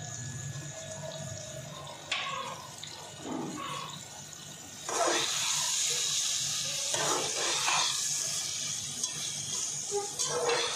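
Chicken gizzard and liver mixture sizzling in a pot while a spoon stirs it and scrapes the pot, with several short scrapes. The sizzle gets much louder about five seconds in and stays loud.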